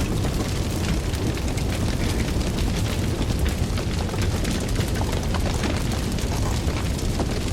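A fire burning, with a steady low rumble of flames and many sharp crackles and pops from the burning wood.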